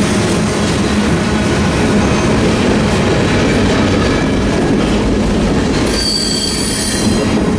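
Freight train cars rolling past close by, covered hoppers and then centerbeam flatcars, with a steady rumble and rattle of wheels on rail. A high squeal from the wheels sounds for about a second near the end.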